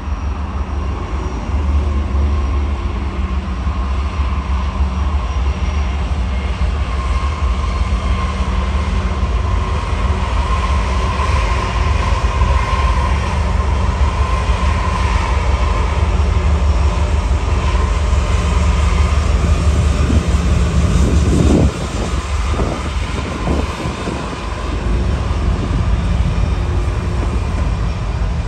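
Several Norfolk Southern diesel-electric locomotives passing close by, a deep steady engine rumble with rail and wheel noise. A few loud clanks come about three-quarters of the way through, and after them the low rumble drops off.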